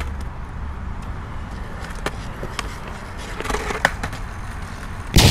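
Skateboard wheels rolling over concrete with a steady low rumble, broken by a few sharp clacks of the board around the middle. A sudden loud burst of noise comes in right at the end.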